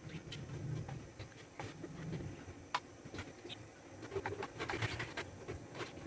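Faint, scattered clicks and taps of a knife cutting through hard-boiled eggs held in the hand, with the slices dropping into a plastic container.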